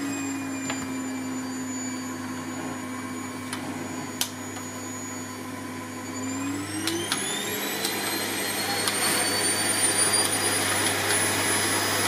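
Vacuum cleaner running with its nozzle rubbed along a cat's fur; the motor whine climbs in pitch and gets louder about six seconds in, then holds at the higher pitch.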